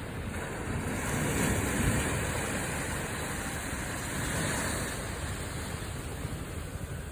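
Small waves on an inland-sea beach washing in and drawing back, the wash swelling about a second in, and again around four seconds in, before easing.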